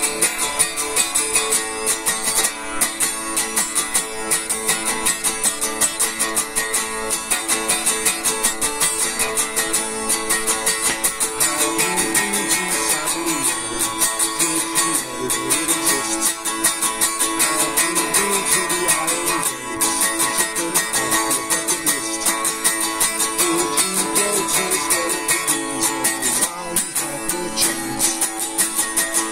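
Electric guitar strummed in a fast, steady rhythm, with chords ringing on between the strokes.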